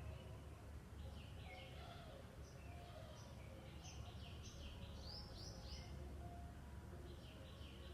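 Songbirds chirping in short, high phrases, with a quick run of rising notes about five seconds in, over a faint steady low rumble.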